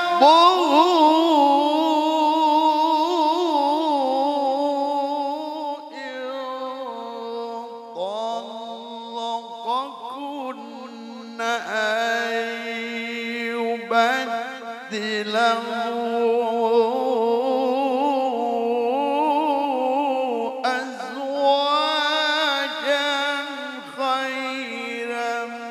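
A male qari reciting the Quran in the melodic tilawah style. He holds long, ornamented notes with wavering pitch, in several sung phrases with short breaks for breath between them.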